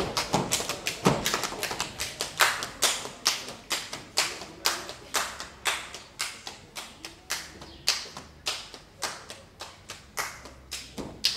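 Hand clapping in a steady dance rhythm, about three sharp claps a second with some beats louder than others, marking the beat for a Hungarian Roma (cigány) folk dance without instruments.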